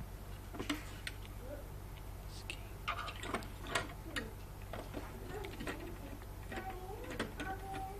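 Light, irregular clicks and taps of plastic Lego pieces being handled and fitted together.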